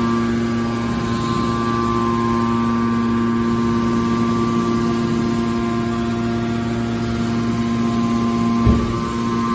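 Hydraulic scrap-metal baler running, a steady hum with several constant tones, with one short thump near the end.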